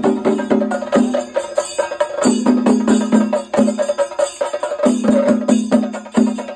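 Chenda drums beaten rapidly with sticks by an ensemble in traditional Kerala chenda melam drumming, a dense run of sharp strokes with a ringing drum note in stretches.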